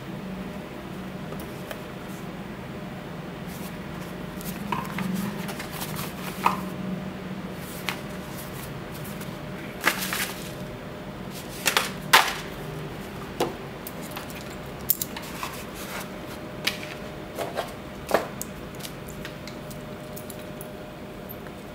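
Handling noises: scattered clicks and light knocks as a canvas watch pouch and small wooden boxes are moved about, the sharpest about ten and twelve seconds in, then a few lighter clicks as a watch with a steel and wood link bracelet is handled. A steady low hum runs underneath.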